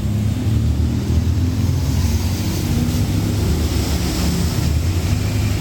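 A steady, loud, low engine-like rumble with a hiss above it.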